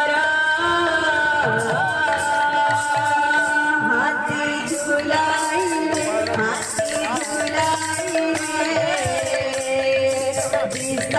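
Sambalpuri kirtan music played live: a held, wavering melody line over hand-beaten barrel drums, with a fast even jingle of clappers or cymbals coming in about halfway through.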